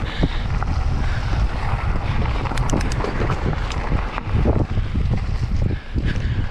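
Wind buffeting a helmet camera's microphone as a mountain bike rolls fast down a dirt and gravel trail, with tyre crunch and scattered clicks and rattles from the bike and stones.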